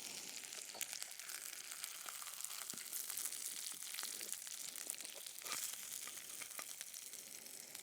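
Faint sizzling of bacon-stuffed lake trout in the pan, with scattered light clicks and scrapes as the fish is lifted out and plated.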